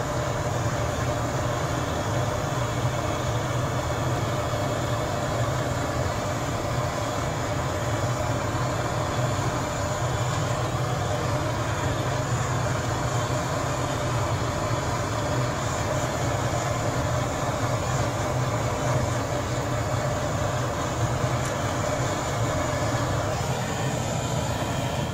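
Gas soldering torch burning steadily with a loud, even noise as its flame heats a silver vase to red heat for silver-soldering a wire rim.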